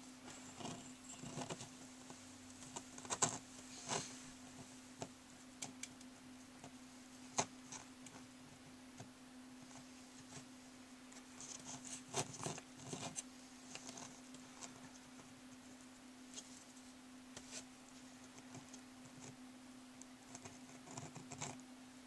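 Faint, scattered clicks and short rustles of fingers handling and pressing sticky candy-dough hair strands on a doll head, over a steady low hum.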